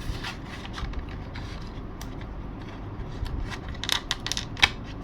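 Small clicks and light scraping as a cockpit latch is pushed into a slot cut in an RC model airplane's cockpit, with a few sharper clicks about two seconds in and near the end.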